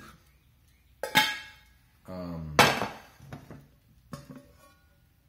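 Metal saucepans and a glass lid being handled and knocked together: three clanks, the loudest about two and a half seconds in, the last one fainter with a short metallic ring.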